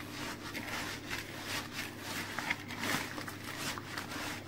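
Hands kneading a wet stuffing of coarse bulgur and meat in a plastic bowl: soft, irregular squishing and rustling strokes.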